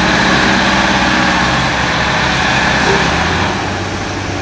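A heavy engine or large machine running steadily, with a dense mechanical noise over a low hum; the hum shifts slightly about three seconds in.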